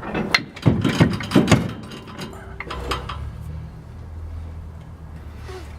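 Metal clunks and rattles from a Model A Ford transmission being shifted and worked into position: a run of loud knocks in the first second and a half, then a few lighter clicks. A low steady hum follows.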